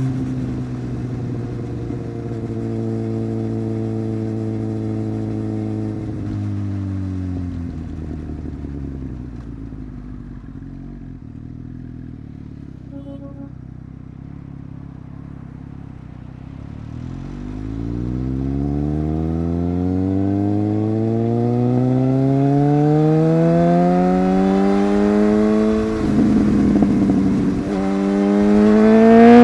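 Superbike engine holding steady revs, then slowing with the engine note falling to low revs for several seconds, then accelerating with the note climbing steadily and growing louder toward the end.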